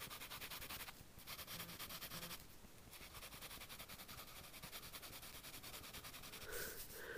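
Pencil graphite scratching faintly on lined notebook paper in many quick, short sketching strokes: the rapid searching-for-line way of drawing.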